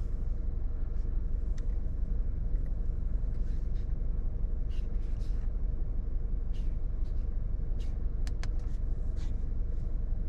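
Car engine idling steadily, a low even rumble, with a few faint light clicks over it.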